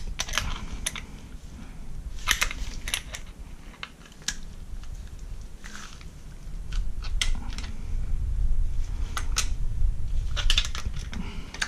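Scattered metallic clicks and clinks of a steel gear puller being unscrewed by hand from a removed clutch bevel gear, with a low rumble of parts being handled from about halfway through.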